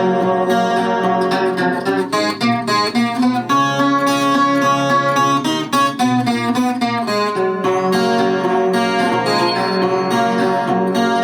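Chilean guitarrón played solo: steady plucked and strummed chords in a repeating pattern, an instrumental interlude between sung verses of canto a lo poeta.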